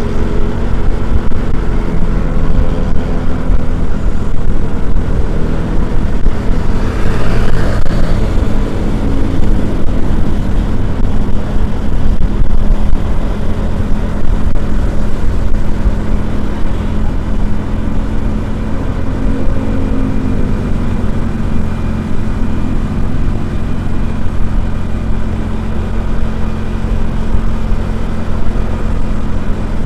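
A motor vehicle's engine running steadily with a heavy low rumble, its pitch drifting slightly. About seven seconds in, a brief swell of higher-pitched noise passes.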